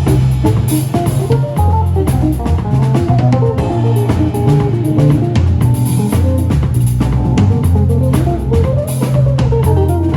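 A live band playing an instrumental passage: drum kit keeping a steady beat under a bass line, with a melodic lead line weaving above.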